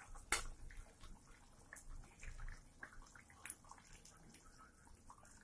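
Faint bubbling of thick spinach gravy simmering in the pot, with scattered soft clicks and plops as paneer cubes are tipped from a steel plate into it.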